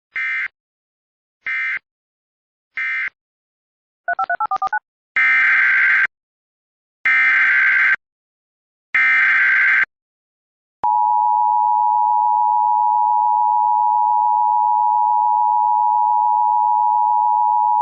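Emergency Alert System tones. Three short digital data bursts come first, the end-of-message code closing the previous alert. A brief warbling two-note chirp follows about 4 s in, then three longer data bursts, the header of the next alert. From about 11 s the steady two-tone attention signal sounds without a break.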